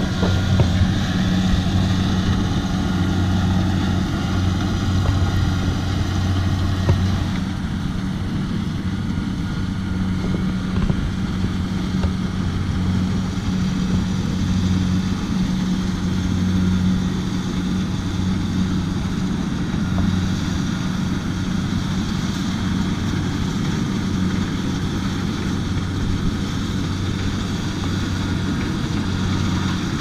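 Rice combine harvester's diesel engine running steadily under load as it cuts, a constant low hum that holds the same pitch throughout.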